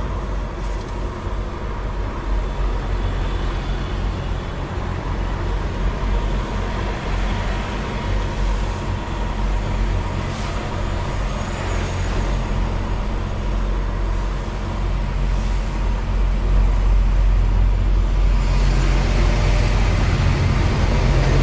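Diesel engine of a Volvo VNL860 semi truck, heard from inside the cab, running steadily with a low hum as the truck rolls slowly; it grows louder about three quarters of the way through.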